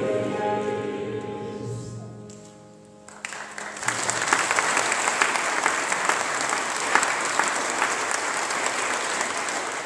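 A choir and congregation with piano hold the final chord of the hymn, which fades away over the first three seconds; then the congregation breaks into steady applause.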